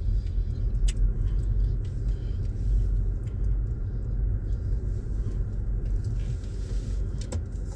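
Low, steady rumble of a car driving slowly, heard from inside the cabin, with a couple of faint clicks.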